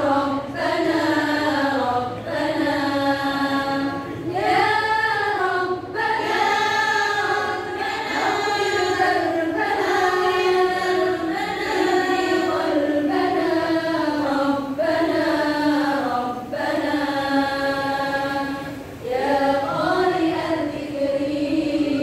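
Women's choir singing together, in held phrases with brief breaks between them.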